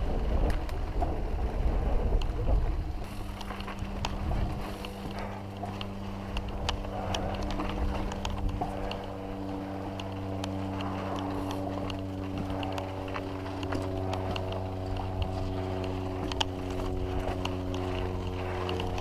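Wind buffeting the camera microphone and the clicking rattle of a mountain bike rolling over a rocky dirt trail. From a few seconds in, a steady low hum with several held pitches runs under the rattle, with more pitches joining partway through.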